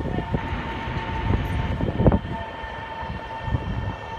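Taiwan Railway EMU500 electric commuter train at the platform, its running noise carrying a steady whine held at one pitch, with a sharp knock about two seconds in.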